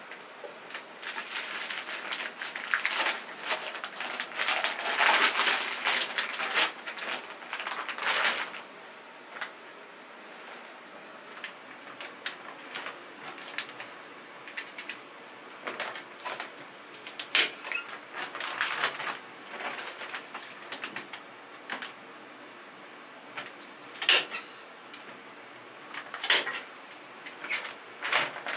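Hand work with boards and loose objects: several seconds of dense clattering and scraping, then scattered sharp clicks and knocks while working at a window frame.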